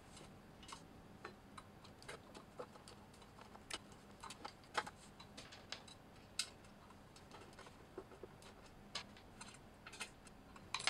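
Faint, irregular small clicks and ticks of a hand screwdriver turning screws back into the head of a KitchenAid stand mixer.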